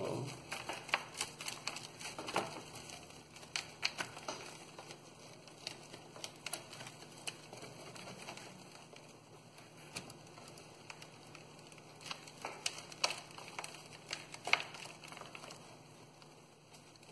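Potting soil and fine roots crackling and crumbling as fingers pick apart a pepper plant's root ball, with leaves rustling: irregular small clicks, busiest in the first few seconds and again a few seconds before the end.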